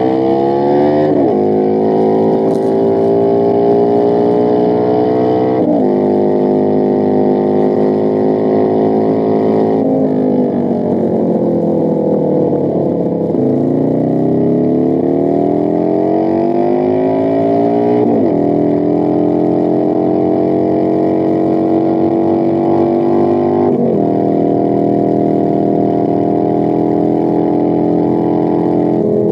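R.G. Mitchell kiddie ride running, giving a steady engine-like hum. Its pitch climbs slowly for several seconds and then drops sharply, about every four to six seconds, like a car going up through the gears. Once, near the middle, it sinks slowly before climbing again.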